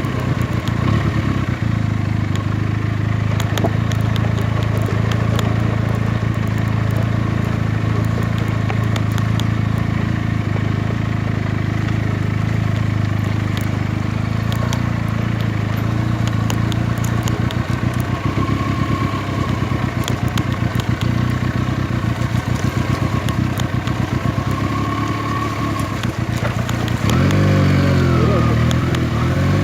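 Benelli TNT 300 parallel-twin motorcycle engine running at a steady speed while riding, with scattered clicks and rattles. A voice comes in near the end.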